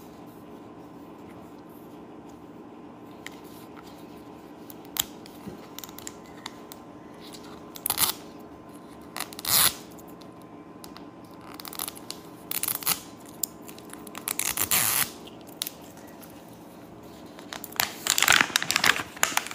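Printed plastic wrapper being picked at and peeled off a toy capsule ball, heard as short crinkling tearing bursts that come thicker and louder near the end. A steady low hum runs underneath.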